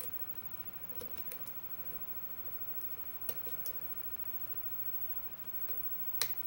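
Faint, scattered metallic clicks of a hook pick lifting the pin stacks of a 5-pin Euro cylinder lock held under tension, in small clusters about a second in and just after three seconds, with a sharper click near the end.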